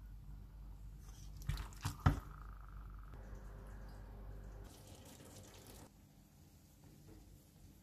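Faint kitchen sounds: a low hum that stops about two-thirds of the way through, a few sharp clicks about two seconds in, and soft bubbling of water boiling in a pot.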